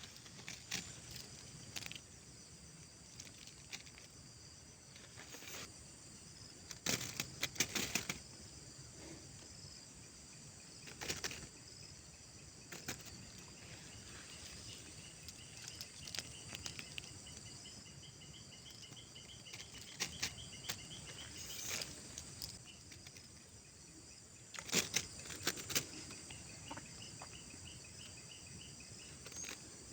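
Steady outdoor insect chorus with a fast pulsed trill twice, broken several times by short bursts of clicking and rustling.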